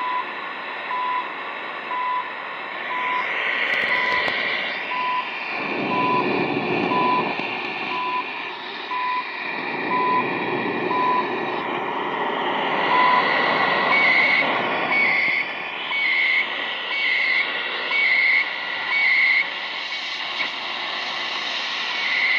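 Shortwave time-signal station on a Zenith Trans-Oceanic 3000-1 portable radio: short timing pips, one a second, over hissing, fading static. From about two thirds of the way in, higher-pitched beeps come about once a second for several seconds.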